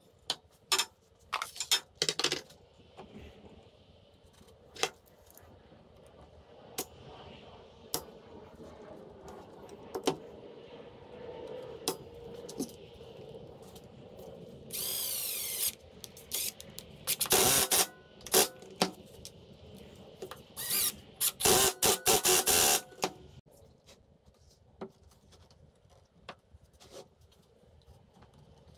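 Milwaukee M12 cordless impact driver driving pocket-hole screws into the joints of a maple face frame: a few short runs of the driver around the middle, the last and longest with a rapid hammering rattle. Sharp clicks and knocks of the wooden parts and a locking clamp being handled come before them.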